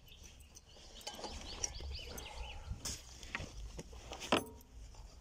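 A military-style backpack being handled and put on, its straps and fabric rustling, with several sharp clicks and knocks. The loudest click comes a little past four seconds in.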